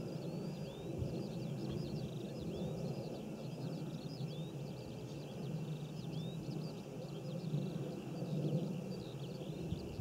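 Many small birds chirping and singing at once, a dense run of short high calls that never stops, over a steady low background rumble.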